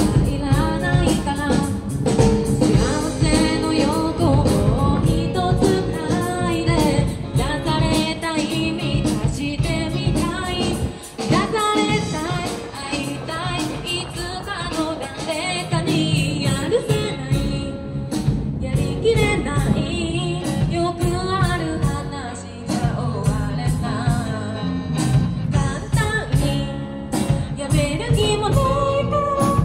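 Live band playing a rock-pop song: a woman singing lead over acoustic guitar, electric bass and a drum kit.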